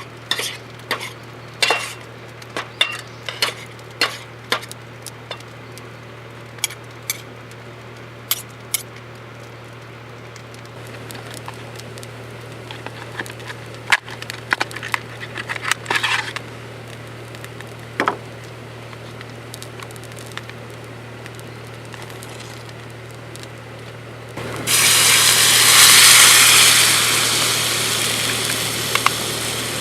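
Cookware and utensils clinking and tapping, then near the end a sudden loud sizzle as food goes into a hot pan, fading slowly.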